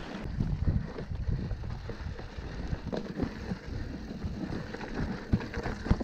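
Mountain bike riding over loose dirt and rocks: the tyres crunch on the gravel and the bike rattles with many small knocks over the bumps, under steady wind noise on the microphone.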